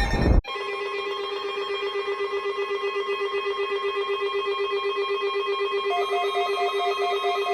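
Weather radio receivers sounding their alert beeps: a rapid, evenly pulsed beeping that starts just after a louder sound cuts off, joined about six seconds in by a second, higher pulsed beep.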